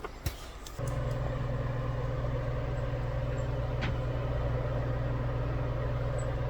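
A steady motor hum switches on abruptly about a second in and runs evenly at a constant pitch.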